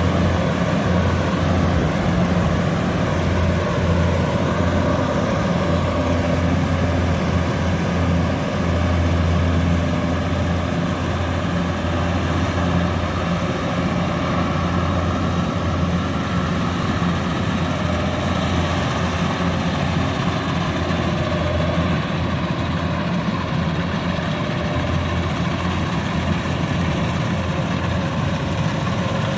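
Kubota DC-105X combine harvester's diesel engine running steadily, with a deep low hum under a wash of machine noise.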